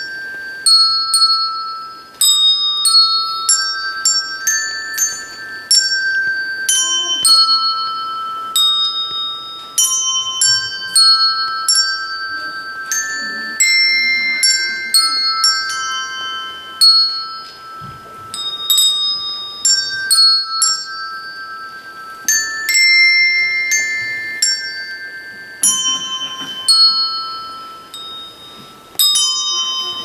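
A simple melody played on colored handbells, one note after another, each bell struck and left to ring and fade before the next.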